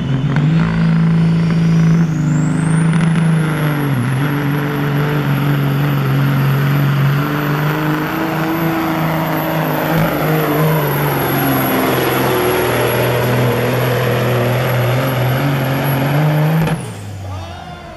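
Diesel semi truck engine running hard under full load while pulling a weight sled. A high turbocharger whine rises over the first few seconds and then holds steady. The engine note dips briefly about four seconds in. Engine and whine cut off abruptly near the end as the driver lets off at the end of the pull.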